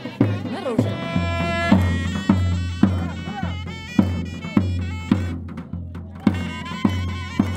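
Iranian folk dance music: a reedy shawm (sorna) plays a held, wavering melody over a steady drum (dohol) beat of just under two strokes a second.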